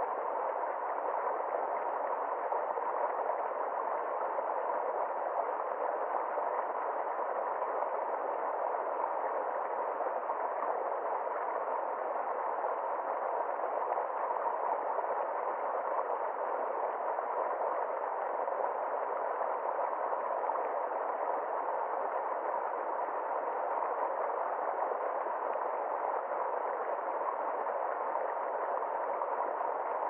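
Small stream rushing down a rocky cascade, a steady even flow of water without breaks.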